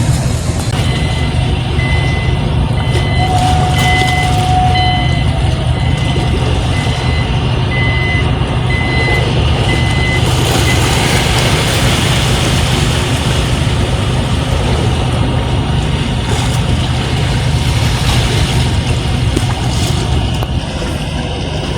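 Vehicle engine running steadily with road noise. For the first ten seconds or so a high electronic beep repeats about once a second.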